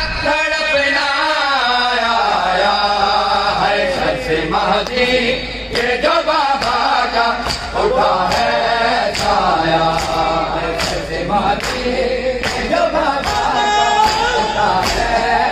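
Men chanting a noha, an Urdu lament, together through a microphone and loudspeakers. The gathered mourners' chest-beating (matam) keeps time with sharp slaps about twice a second, clearest from a few seconds in.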